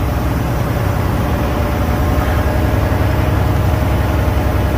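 Semi truck's diesel engine running with a steady low drone, heard from inside the cab.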